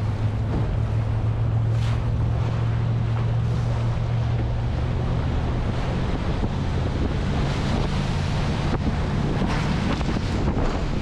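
A jet boat's engine running steadily with a low hum, under rushing, splashing whitewater and wind buffeting the microphone as the boat runs a rapid. Splashes of spray hit near the end.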